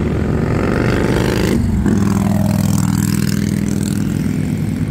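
Motor vehicle running, its pitch rising over about the first second and a half as it speeds up, then holding steadier.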